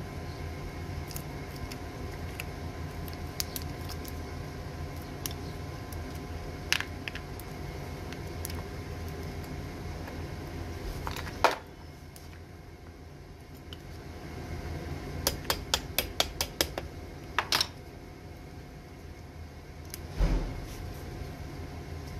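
Pliers and small metal battery-terminal pieces clicking and clinking against each other and the battery top, with a sharp snap about 11 seconds in and a quick run of clicks around 15 to 17 seconds, over a steady low hum.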